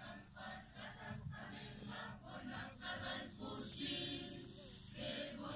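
A choir singing, in short rhythmic phrases.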